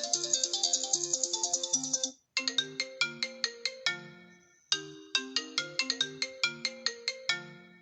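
Two iPhone ringtones in turn. A dense, bright one stops about two seconds in. After a short gap another begins: a short melodic phrase of sharply struck notes that die away, repeating about every two and a half seconds.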